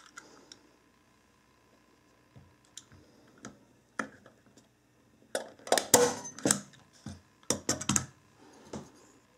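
Clicks and knocks from a heavy-duty metal hand tacker (staple gun) being set down on wood and fired to drive a staple into a wooden block. The loudest snap comes about six seconds in, amid a cluster of sharp clacks.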